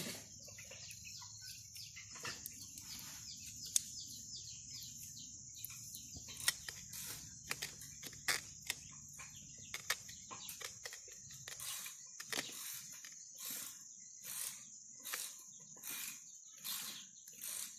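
Repeated short scraping or rubbing strokes, sparse at first, then coming about one and a half a second in the second half, over a steady high-pitched insect drone.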